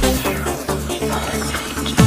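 Electronic dance music with the kick drum dropped out for a short breakdown, held tones and a sweeping noise building up. The pounding beat comes back in at the end.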